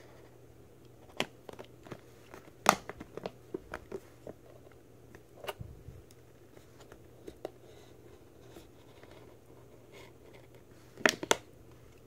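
Clear plastic blister packaging being cut and pried open with a small cutter: scattered sharp clicks and crackles of the stiff plastic, with the loudest couple near the end.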